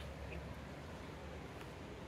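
Quiet background noise: a faint, steady low rumble with no distinct event.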